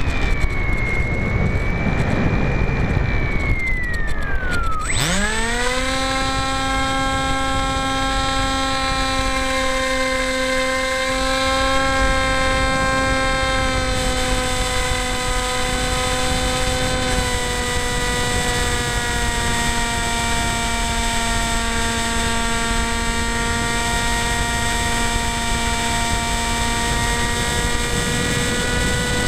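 Spyhawk FPV model plane's electric motor and propeller, heard from the onboard camera. For the first few seconds the pitch falls, then about five seconds in the motor spools up sharply to a steady high whine that holds, dipping slightly twice, over a low rush of air.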